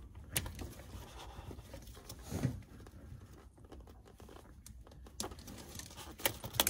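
Gloved hands working the water-sensor wire connector under a diesel primary fuel filter: light rustling with scattered sharp clicks, a short low sound about two and a half seconds in, and a few more clicks near the end as the wires are disconnected.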